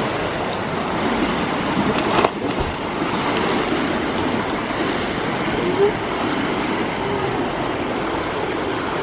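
Water splashing and churning as two men swim through a swimming pool, a steady hiss of moving water, with faint voices in the background and a brief click about two seconds in.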